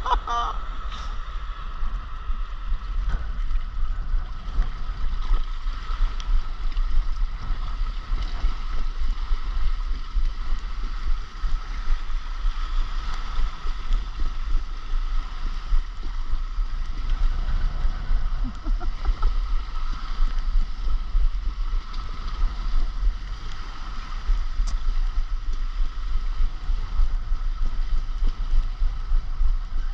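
Rushing water and heavy wind buffeting on an action camera's microphone during a water-slide ride, a steady, loud noisy rumble.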